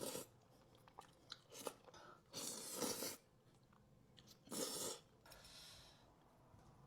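Close-miked chewing and crunching of food in a few separate bursts with quiet gaps between, as in a mukbang.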